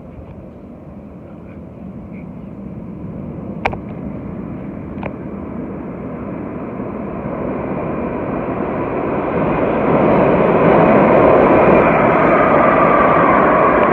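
New York City subway train rumbling, growing steadily louder over about ten seconds and then holding loud, with two sharp clicks a few seconds in.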